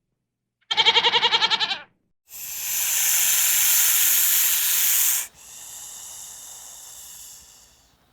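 A short quavering bleat lasting about a second, then a loud hiss for about three seconds that drops to a quieter hiss.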